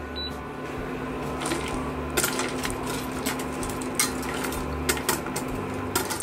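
Wire whisk stirring lumps of rock sugar and slab sugar in water in a stainless steel saucepan, clinking irregularly against the pan and the sugar from about a second and a half in, as the sugar is dissolved over low heat. A steady low hum runs underneath.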